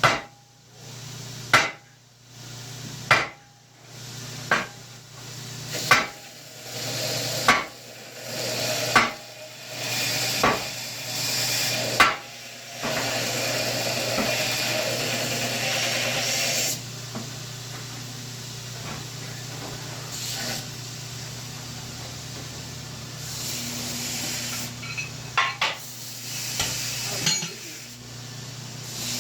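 A blacksmith's hand hammer striking hot steel on an anvil at a steady pace, about one blow every second and a half for the first twelve seconds, while the bevel is forged on a piece. A steady rushing noise follows for about four seconds, then a few light taps near the end, over a constant hum.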